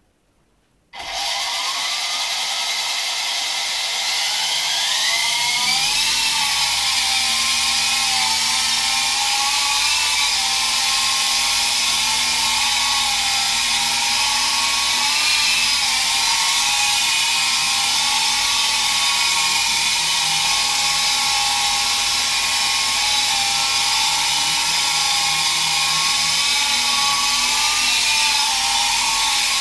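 T-34 coaxial RC toy helicopter's small electric motors and rotors: a high whine that starts about a second in, climbs in pitch over the next few seconds, then holds fairly steady with a slight wavering as the helicopter hovers.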